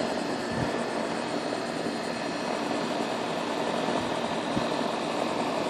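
Goodman outdoor AC condensing unit running steadily, its condenser fan and compressor started up again on a newly fitted 30+5 dual run capacitor, which replaced a swollen, failed one.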